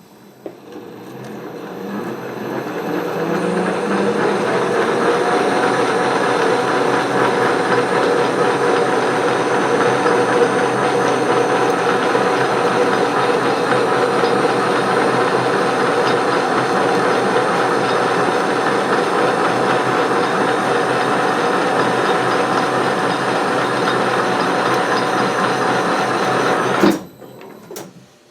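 Metal lathe running under power through a thread-cutting pass with the half nut engaged: a steady whir of the motor and gear train with a constant whine, building up over the first few seconds as the spindle comes up to speed. It cuts off abruptly near the end as the spindle is braked to a stop.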